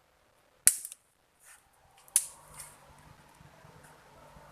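Two sharp clicks or knocks about a second and a half apart, then a faint steady background.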